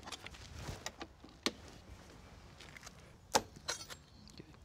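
Sharp metal clicks and clinks of a tool working a casement window's operator arm loose from its track on the sash. The loudest click comes about three and a half seconds in, followed by a short rattle.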